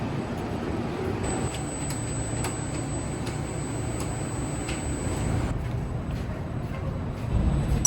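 Steady low vehicle rumble, with a few faint clicks and a thin high whine through the middle.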